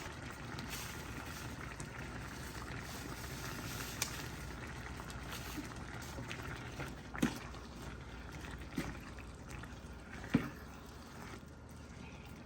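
A pot of chili cooking on the stove, with a steady bubbling sizzle and a few sharp knocks.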